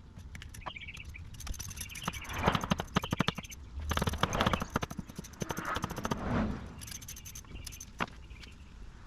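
Rapid runs of clicking and scraping from work on the engine during its removal, with birds chirping faintly in the background.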